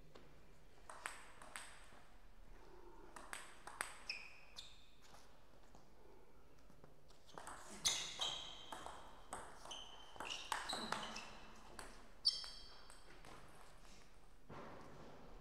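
Table tennis ball hitting rubber paddles and bouncing on the table: a few scattered clicks, then a quicker exchange from about halfway, several hits carrying a short high ring. The loudest hits come about eight and about twelve seconds in.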